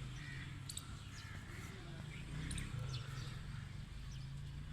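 Birds chirping in short, very high calls, one about a second in and another at about two and a half seconds, over a steady low rumble.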